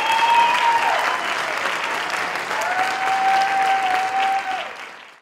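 Crowd applauding, with two long held high calls or whistles over the clapping; the applause fades out at the end.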